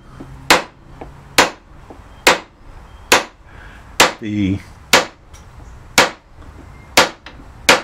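Hammer striking a steel background punch into a carved oak panel, good hard whacks at about one a second, nine in all, stamping a texture into the carving's background.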